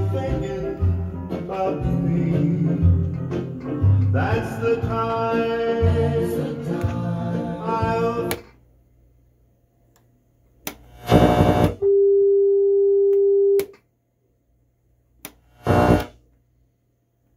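Pioneer SX-1080 stereo receiver playing FM radio: music with singing that cuts off about eight seconds in as the dial is turned. Near silence follows, broken by brief snatches of other stations and a steady tone for nearly two seconds.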